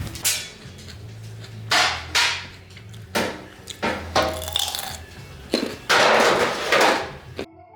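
A run of short, rough rustling and crackling noises close to the microphone, about eight of them at uneven intervals, the longest lasting about a second near the end, then cut off abruptly.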